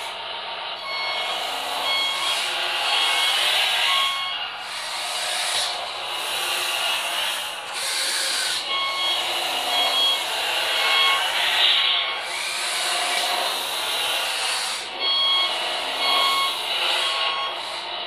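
Beier USM-RC-2 sound module in an RC-converted Bruder wheel loader playing a simulated engine sound through its small speaker, swelling and dropping as the loader drives. Three stretches of reversing-alarm beeps, about two beeps a second, sound over it.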